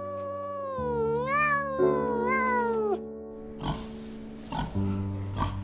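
A kitten's drawn-out meows, sliding up and down in pitch, over steady background music. About three and a half seconds in, the meows give way to short grunts from piglets.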